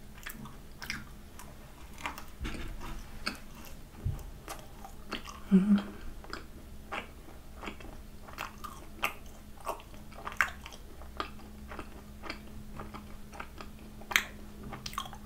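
Close-miked chewing of a vanilla crème brûlée macaron, its top of torch-melted sugar: soft, irregular crunching and sticky mouth clicks, with a brief closed-mouth hum about five and a half seconds in.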